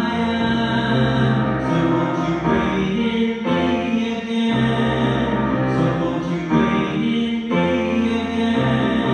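Church recessional hymn, with held chords that change about once a second and singing.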